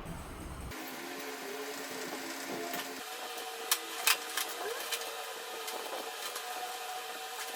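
A small motor running steadily with a hum, with a few sharp clicks about halfway through.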